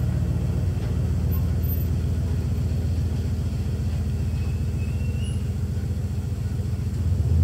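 Motor vehicle engine running steadily, a low hum that grows a little louder near the end.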